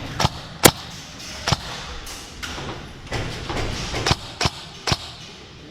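Scattered airsoft gunfire: about seven sharp single cracks at irregular intervals, the loudest a little under a second in.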